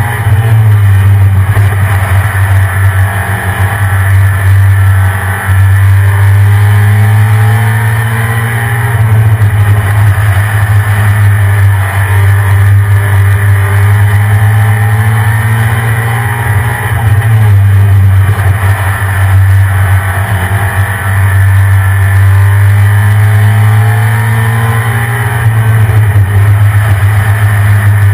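A stock 1993 Ford SVT Lightning pickup's V8 running loud and steady, its pitch holding with a few brief dips and shifts.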